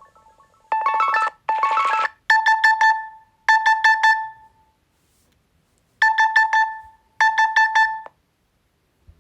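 Nokia 6.1 phone speaker playing its preset tones: two short bursts of notes, then an electronic alarm-style beeping in groups of four rapid beeps. Two groups sound, then a pause, then two more groups.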